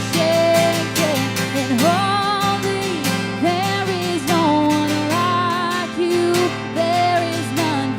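Live worship music: a strummed acoustic guitar under a slow melody of long held notes with vibrato.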